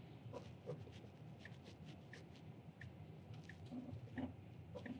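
Faint, irregular squeaks and creaks from a Tesla's front suspension upper control arms as the car rolls slowly, over a low steady cabin hum. The squeak is the owner's known fault: the arms began squeaking because the recall was done without the sealing gel.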